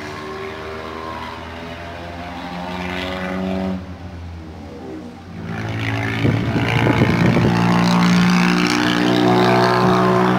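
Motorcycle engine running and being revved, its pitch rising about three seconds in, dropping back, then rising again and holding higher near the end; the bike has broken down and is being worked on.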